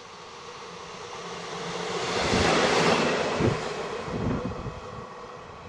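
A train passing at speed: a rushing swell of rail and air noise that builds, peaks about halfway through and fades away, with a few low thumps at its loudest.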